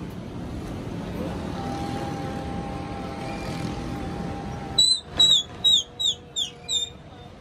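Steady outdoor rumble of city background noise with a faint held tone. About five seconds in, a quick run of six high, falling chirps, about three a second, cuts in loudly over it.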